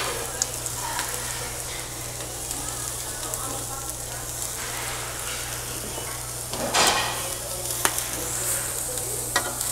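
Lamb and ribeye steak sizzling steadily on a hot tabletop grill plate, with sharp clicks of metal tongs. About seven seconds in, a louder burst of sizzling comes as the lamb is turned over on the hot plate.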